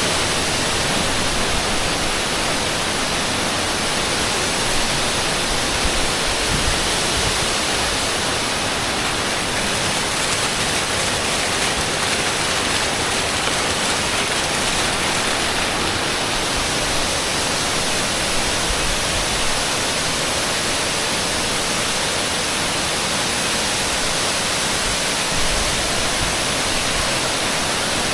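Waterfall rushing steadily: a constant, loud hiss of falling water spread evenly from low to high.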